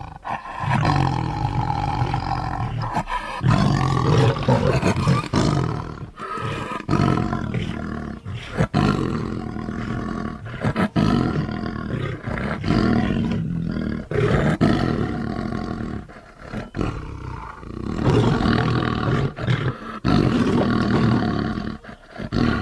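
Big cat vocalising: a run of long roaring calls, each lasting a second or more, with short breaks between them.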